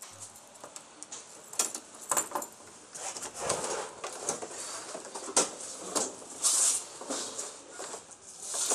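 Scattered clicks, taps and rustling from handling around a parked motor scooter, with the engine not running.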